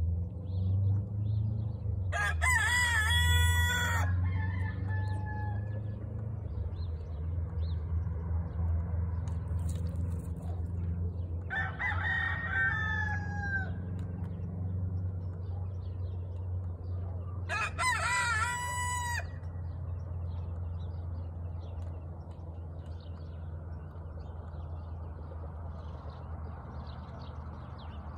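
Roosters crowing three times, each crow about two to three seconds long, over a steady low rumble.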